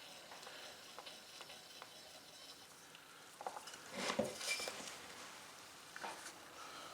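Faint handling noises of small machine parts: scattered light clicks and scrapes, with a louder cluster of clinks and rubbing about three and a half to five seconds in.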